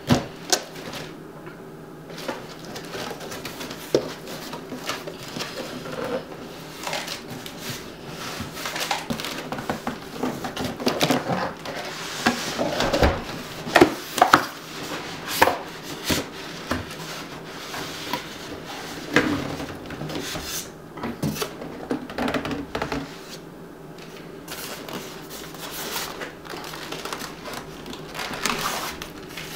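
A large cardboard box being handled and opened: cardboard scraping and rubbing, with irregular knocks and thuds as the box is turned over on the table. Then a computer case packed in foam end caps and a plastic bag is lifted out of it.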